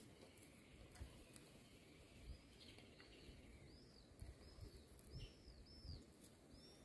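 Faint bird chirping: about half a dozen short, arching high notes from about two seconds in, over quiet outdoor background. A few soft low knocks come from hands placing sliced onion on a plate.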